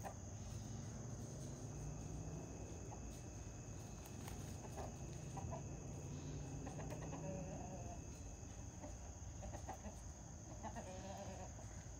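Backyard chickens clucking softly a few times, short scattered calls over a steady high chirring of crickets.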